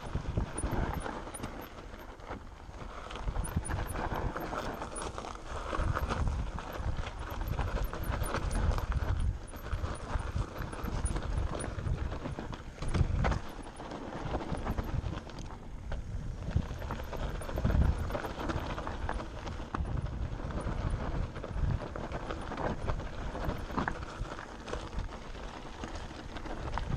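Mountain bike descending a loose gravel and rock trail: tyres crunching over stones with frequent knocks and rattles as the bike hits bumps, and a low wind rumble on the camera microphone.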